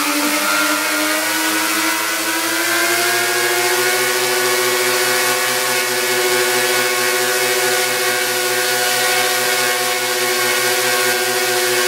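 The four electric motors and propellers of an RC B-17 model running on a bench test: a steady pitched drone that rises over the first few seconds as the throttle is opened, then holds level.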